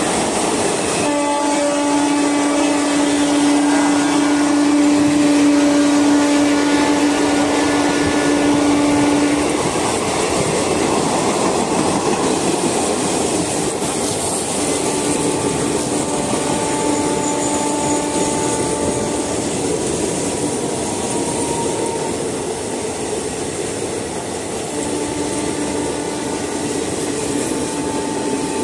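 Coaches of an express passenger train rushing past at high speed: a steady rush and clatter of wheels on rail. A long steady horn note from the electric locomotive runs through the first third and comes back twice later.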